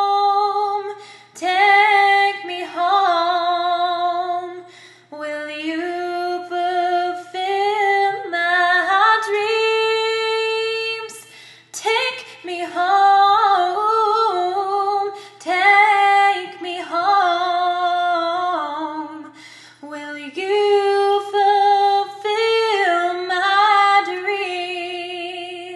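A woman singing a wordless a cappella melody, unaccompanied, in long held phrases with vibrato and short breaks for breath between them.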